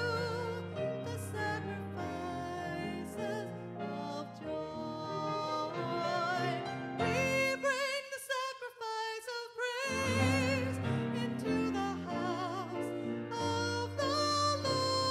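A woman singing with vibrato to grand piano accompaniment. The piano drops out for about two seconds in the middle while her voice carries on alone, then comes back in.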